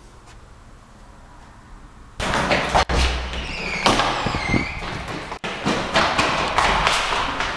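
Quiet for about two seconds, then suddenly loud: hurried running footsteps thudding on a hard corridor floor and a fire door banging open. A short, high squeal is heard about halfway through.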